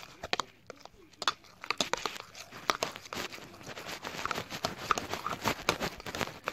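Irregular crinkling and crackling from hands squeezing and working a frozen hand-soap slime: a dense run of quick clicks and crackles.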